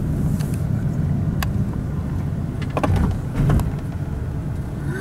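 Inside a slowly moving car: steady low rumble of the engine and tyres, with a few light clicks and knocks about three seconds in.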